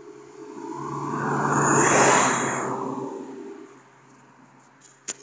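A vehicle passing close by with a whoosh that swells up, peaks and fades away over about three seconds, over a steady low hum. A single sharp click near the end.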